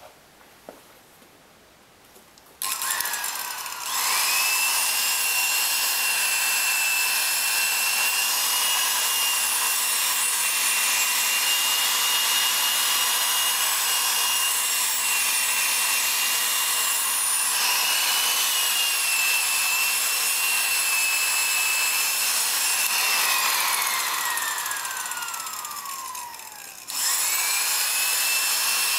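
Corded electric drill with a foam buffing pad polishing a wooden panel, the pad rubbing on the wood. The motor starts a few seconds in, whines up to speed and runs steadily. Near the end it winds down with a falling pitch, then starts again and speeds back up.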